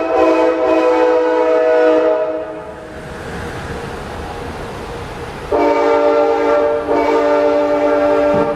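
Amtrak train's multi-note air horn sounding loud, long blasts: one blast held to about two seconds in and dying away, a lower rumble of the train between, then a second blast from just past halfway that stops near the end.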